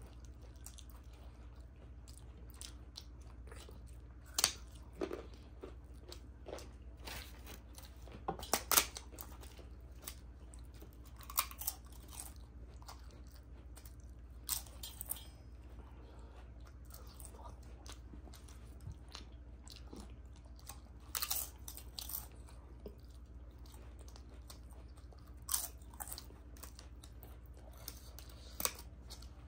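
Close-up eating sounds: sharp crunches every few seconds as a crisp papad is bitten and chewed, over a faint steady low hum.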